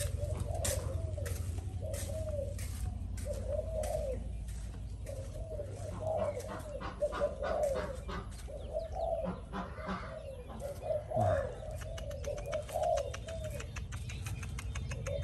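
Birds calling: short, low, arched calls repeated every half second or so, with many sharp clicks over them and a low rumble that fades out a few seconds in.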